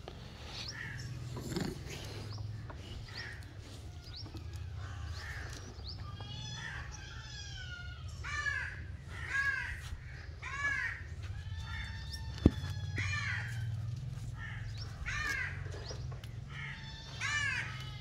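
Crows cawing, short harsh calls coming in repeated runs from about a third of the way in, over a low steady rumble. A single sharp knock sounds about two-thirds of the way through.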